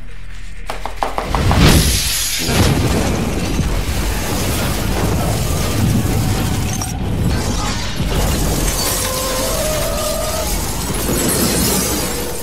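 Electric blade coffee grinder starting about a second in and running. It grinds pieces of battery graphite rod into powder and stops near the end.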